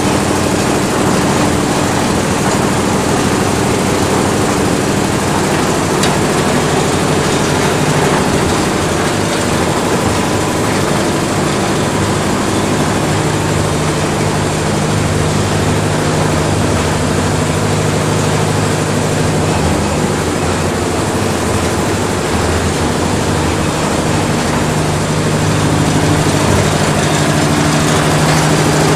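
PNB-675B concrete mixer with hopper and hoist running steadily under power, its drive and mixing drum turning. A deeper, steadier hum joins about twelve seconds in, with the hopper up on the hoist, and holds until near the end.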